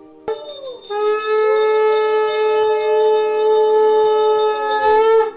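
A conch shell blown in one long, steady note after a short first blast. A small brass hand bell rings rapidly through it.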